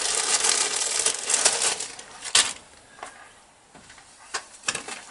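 Hands rummaging and handling small workshop items: a rustle lasting about two and a half seconds that ends in one sharp click, then a few lighter clicks and taps.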